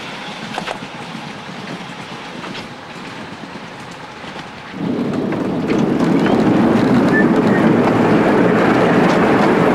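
One-third size tramcar on 15 inch gauge track, a steady rushing rumble of its wheels running on the rails with a few clicks early on. The noise grows clearly louder about five seconds in.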